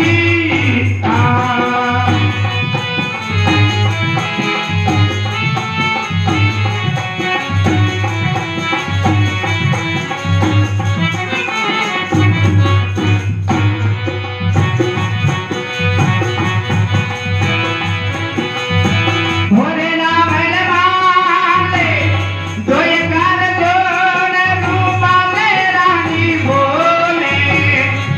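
Rajasthani folk devotional bhajan performed live: a man singing into a microphone over a steady drum beat and sustained instrumental accompaniment, the voice coming through most clearly about two-thirds of the way through.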